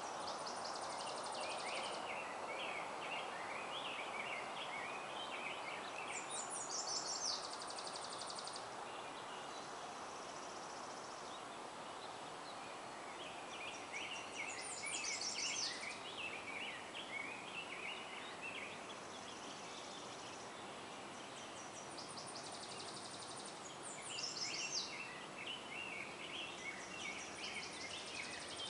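Several songbirds singing in a morning chorus: warbling phrases and high, rapid trills that come back every few seconds, over a steady hiss of distant road traffic.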